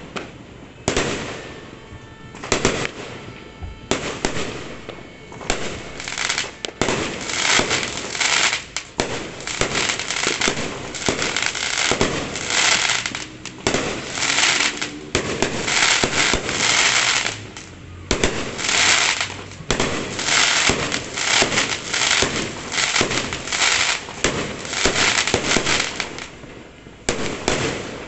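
Fireworks going off in rapid, near-continuous succession: many sharp bangs and pops mixed with stretches of dense crackling.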